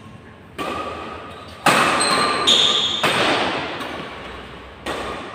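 Badminton rackets hitting a shuttlecock in a doubles rally: four sharp hits about a second apart, each echoing in a large hall.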